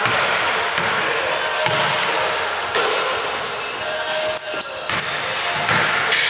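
Basketball dribbled on a hardwood gym floor, bouncing about once a second, with short high sneaker squeaks on the floor in the second half as the players move.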